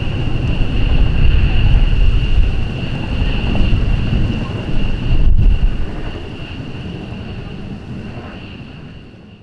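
Steady high whine of jet engines idling or taxiing, over a heavy rumble of wind on the microphone. There is a brief break about halfway, then it fades out near the end.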